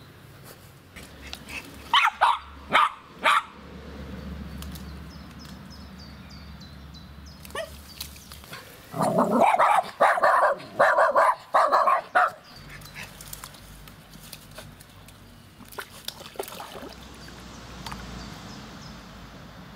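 West Highland White Terrier barking in two volleys of short, sharp barks: four about two seconds in, then a quicker run of about seven from about nine seconds in.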